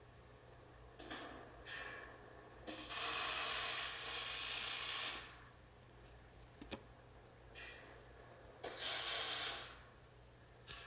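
Electric arc welding on steel: a few short bursts of arc hiss and crackle as tack welds are laid, with one longer weld of about two and a half seconds near the middle, fixing the angle-iron platform frame to the staircase's centre column.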